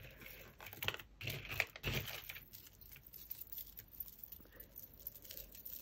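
Small metal chains, earrings and glass beads clinking and rustling in a small cardboard box as fingers rummage through them, with a cluster of louder clicks between about one and two seconds in.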